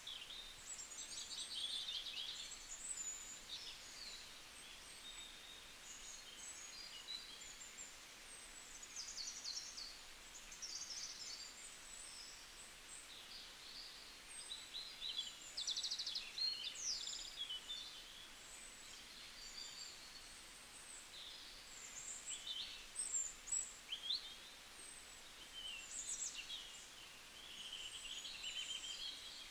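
Many small birds chirping and trilling over a steady background hiss: short high calls and quick rattling trills, scattered and overlapping throughout.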